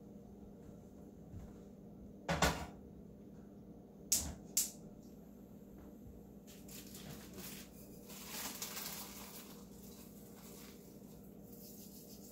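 Sharp knocks and clatters as a frying pan of salted pumpkin seeds is set on a gas stove: one about two seconds in, then two close together about four seconds in. These are followed by a run of light clicks and a soft rush as the gas burner is lit under the pan.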